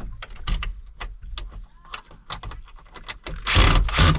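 New screws being fitted and driven in: small clicks and rattles, then a loud whirring burst of under a second near the end.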